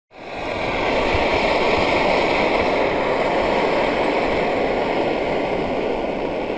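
Camping stove burning under a pot of water at the boil: a steady rushing noise that fades in over the first second.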